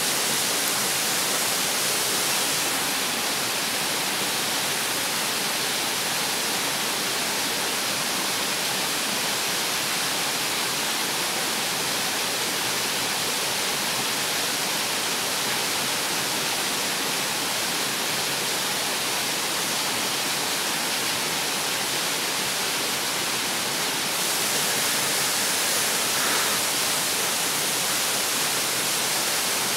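Waterfall pouring down through its ice, a steady rushing hiss of falling water with no break.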